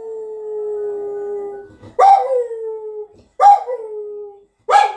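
Staffordshire bull terrier howling: one long howl that slides down in pitch and holds, then two shorter falling howls starting about two and three and a half seconds in, and a short, sharp call near the end.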